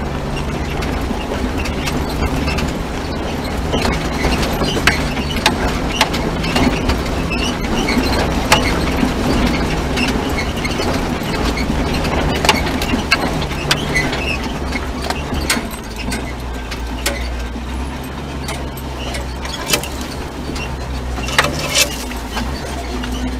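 Jeep Wrangler TJ driving slowly over a rough rocky dirt trail, heard from inside the cab: a steady low engine rumble under frequent rattles and sharp knocks from the body and suspension working over the rocks.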